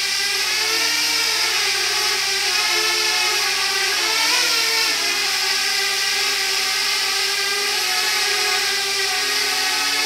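Parrot Bebop quadcopter's four propellers and brushless motors whining as it hovers at close range, the pitch wavering up and down as the motors keep changing speed to hold position and follow a moving target.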